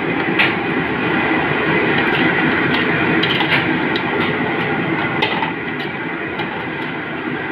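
Steady loud background noise with scattered light clicks of metal tongs and utensils handling fried crabs in plastic tubs.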